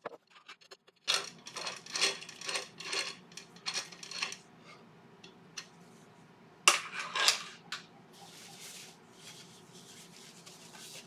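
Hard clinks and knocks of objects being handled, in a quick run for a few seconds, then a louder clatter about two-thirds of the way through, followed by soft rubbing sounds.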